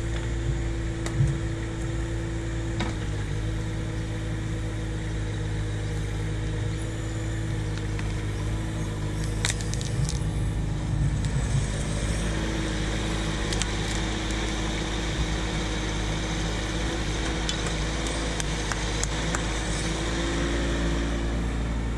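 Bobcat E10 mini excavator's diesel engine running steadily under load, with a steady hydraulic whine that dips and shifts as the arm works. A few sharp cracks and knocks come as the tree stump and its roots are torn out of the ground, one near the start and one about nine seconds in.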